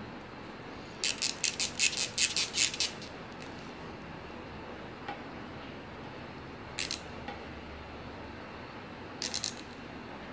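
Crisp clicks and taps of hard plastic collectible figures being handled and set down on a marble tabletop. A quick run of about ten clicks comes in the first few seconds, a double tap about two thirds of the way in, and three quick clicks near the end.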